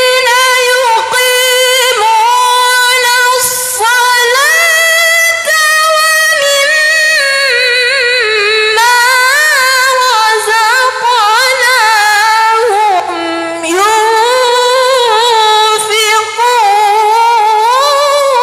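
A young woman reciting the Quran in the melodic tilawah style into a handheld microphone. Long held notes waver and slide in pitch, broken by a few short pauses.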